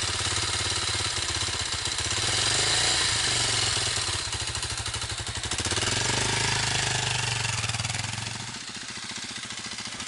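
Motorcycle engine running with a fast, pulsing beat, swelling louder twice as a learner rider feeds in throttle against the clutch to pull away. The low engine note falls away about two seconds before the end.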